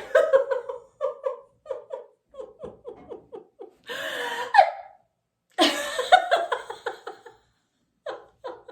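Laughter-yoga sneezing laughter: rhythmic ha-ha-ha laughter broken by two loud mock sneezes, about four and five and a half seconds in, each running straight on into more laughter.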